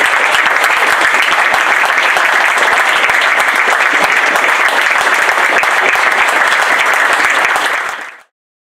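Many people clapping together, a steady applause from lines of players, officials and spectators; it fades out quickly near the end.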